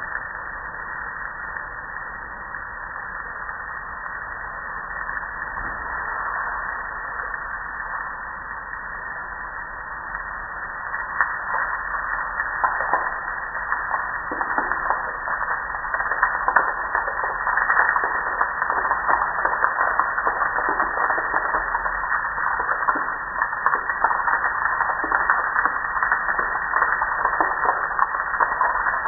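Water spray hitting a stone wall and window frame, a steady hiss with spattering and splashing, water running and dripping off the sill. It grows louder and busier from about eleven seconds in.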